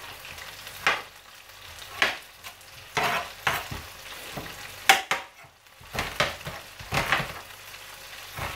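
Chef's knife slicing onions on a cutting board, a sharp chop about once a second, over the steady sizzle of beef browning in a frying pan.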